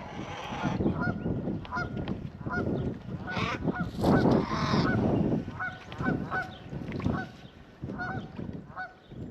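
Geese honking over and over in short, repeated calls, with a louder noisy rush about four seconds in.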